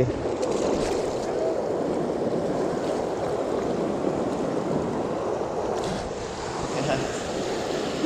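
River water flowing steadily.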